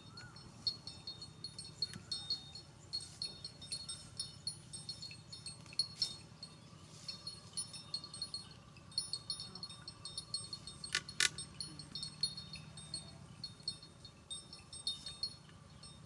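Outdoor ambience of rapid, high-pitched chirping from small wildlife, fairly faint and continuous, with two sharp clicks close together about eleven seconds in.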